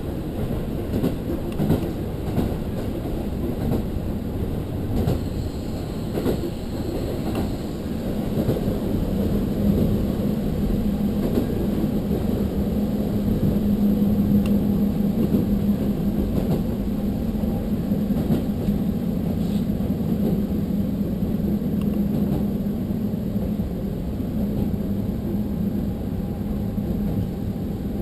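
Diesel railcar running along the line, heard from inside the car: a steady rumble of wheels on rail with a few rail-joint clicks in the first seconds, and a low engine drone that comes up about eight seconds in and holds.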